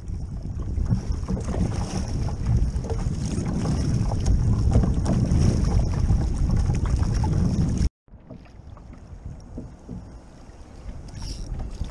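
Wind noise on the microphone and water splashing as a kayak is paddled with a double-bladed paddle. About eight seconds in the sound cuts off abruptly and comes back as a quieter wash of wind and water.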